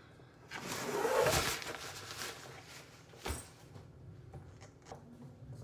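Rustling and handling noise close to the microphone as a person reaches past it, followed by a single sharp knock a little after three seconds in and a few faint clicks.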